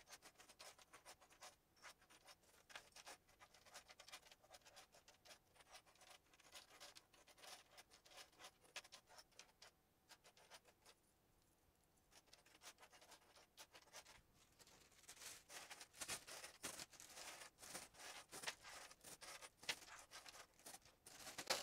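Small metal strap clasps clicking against one another and scraping on a cutting mat as they are slid aside by hand and counted. The clicking is faint, pauses briefly near the middle, then becomes busier and louder in the last third.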